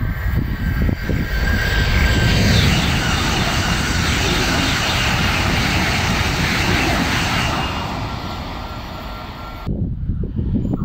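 Renfe high-speed electric train passing at speed: a broad rushing noise of wheels and air that builds about two seconds in, holds for several seconds, then fades away. Near the end it breaks off abruptly into wind buffeting the microphone.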